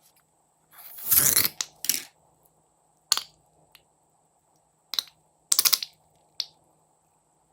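Slime being handled, crackling and popping in short bursts: a longer crackle about a second in, single pops around three and five seconds, and a quick run of pops near the end.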